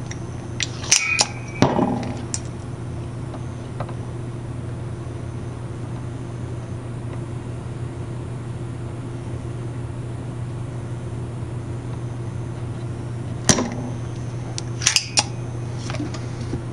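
Spring-loaded desoldering pump (solder sucker) clicking as its plunger is cocked and fired, a few sharp clicks about a second in and again near the end, over a steady low hum.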